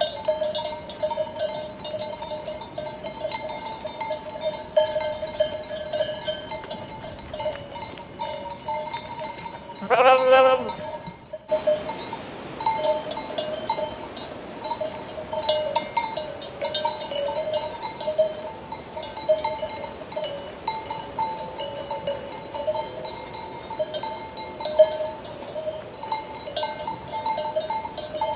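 Sheep bells clanking and ringing steadily. A single sheep bleat sounds about ten seconds in and lasts about a second and a half.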